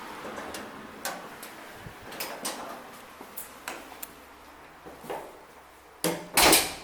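A string of light, irregular knocks and clicks, then a louder scraping knock lasting about half a second near the end.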